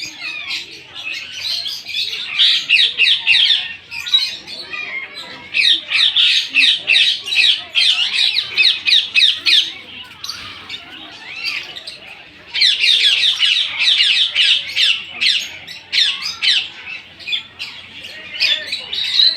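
A flock of birds calling together: many rapid, shrill squawks and chirps in dense bouts of a few seconds, separated by short lulls.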